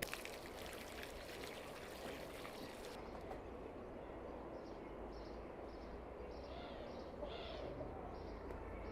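Faint outdoor background with birds calling: short high chirps repeating from about halfway through, and a faint lower wavering call near the end.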